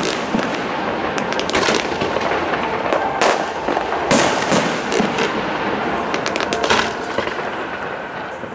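Fireworks display going off: a dense crackle with sharp bangs from small aerial star bursts and low effects, several loud reports in quick succession, easing off near the end.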